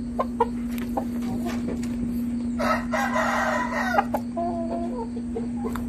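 Bangkok game-fowl rooster crowing once, a rough call of about a second and a half starting a little before the middle, followed by a few short clucks. Light clicks and knocks come and go around it.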